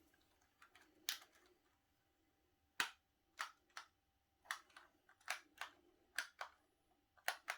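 Keys of a mechanical keyboard being pressed and released, a dozen sharp clicks, mostly in quick pairs.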